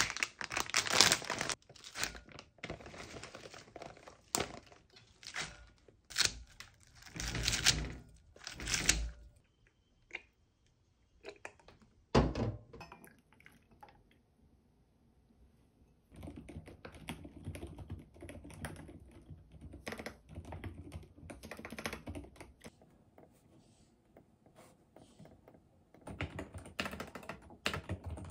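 A plastic salad bag crinkling and rustling as it is handled, then one sharp knock. After that, typing on a mechanical keyboard: a steady patter of key clicks.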